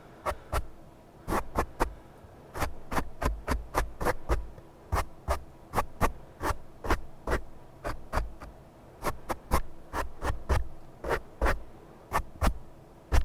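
Close-miked ASMR trigger sounds: a long run of short, crisp taps and scratches, about three a second in uneven clusters, some with a soft low thud beneath. The loudest tap comes right at the end.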